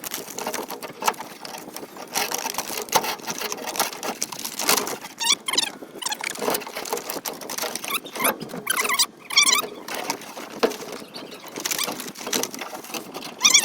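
Rusted thin-gauge sheet-metal ducting of a forge smoke pipe scraping, crinkling and clattering as it is worked up and out, with several short high-pitched metal squeals around the middle and again near the end.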